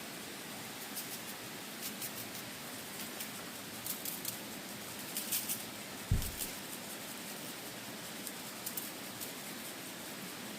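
Scattered light clicks and rattles over a steady hiss, with one dull thump about six seconds in.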